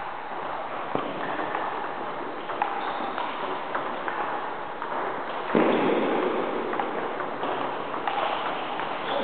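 Table tennis ball ticking off bats and the table during play, a few sharp clicks spread out over steady hall noise. The noise gets louder about halfway through.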